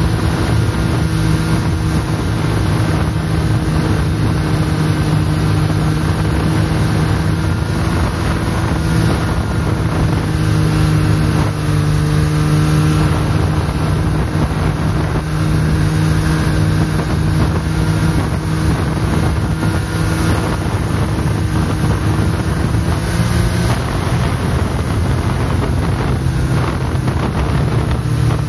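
Snowmobile engine running steadily at cruising speed, its pitch holding nearly even, with wind noise on the microphone.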